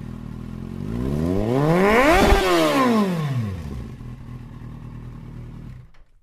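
Motorcycle engine sound effect: running, then revved up to a peak about two seconds in and back down. It settles to a low steady run and cuts off abruptly near the end.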